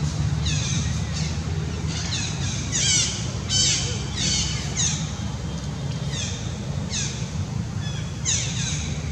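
Repeated short, high-pitched animal calls, each sliding downward, coming about once or twice a second over a steady low rumble.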